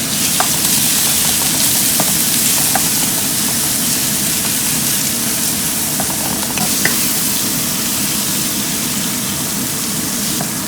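Thin slices of pork belly sizzling steadily in hot oil in a frying pan with diced scallions, with a few light clicks of the spatula as they are stirred.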